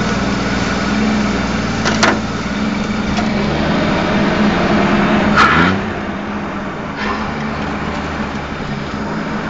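Off-road 4x4 engine running steadily at a crawl, with two sharp knocks about two and five and a half seconds in. The engine note rises briefly with the second knock, and the sound is a little quieter afterwards.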